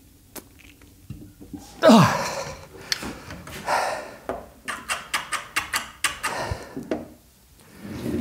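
A man grunts with effort as he pulls as hard as he can on a crane scale hooked to a latch; the grunt falls sharply in pitch about two seconds in. Heavy breathing and a rapid string of sharp clicks and clinks follow.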